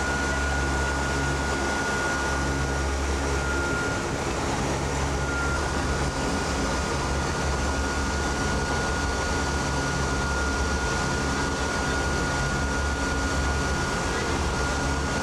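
Aircraft engines running steadily, heard inside the cockpit: a low drone with a thin, steady high whine over it.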